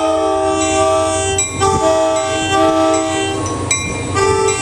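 Diesel locomotive air horn sounding loudly in long chord blasts with brief breaks, over the low rumble of an approaching train.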